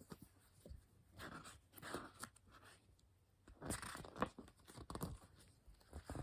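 Paper pages of a picture book being handled and turned: soft rustling and crinkling in short, irregular bursts, busiest about halfway through.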